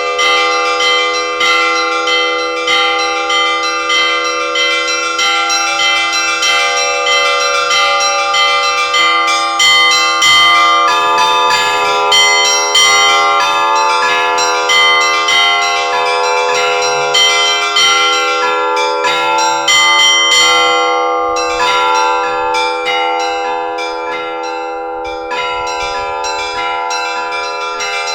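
Russian Orthodox church bells ringing together. Rapid, rhythmic strikes on the smaller bells ring over the sustained hum of a larger bell. The ringing thins out and softens a little in the last third.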